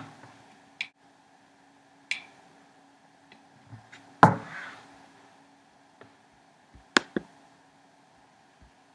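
Scattered short clicks and taps from a computer mouse and keyboard being handled, about ten in all, with a louder knock and brief rustle about four seconds in and a quick double click near seven seconds. A faint steady hum runs underneath.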